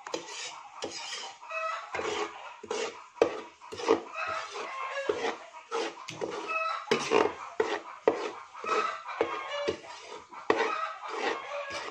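Chickens clucking over and over in short pitched calls, with a metal spatula scraping flour around a wok underneath.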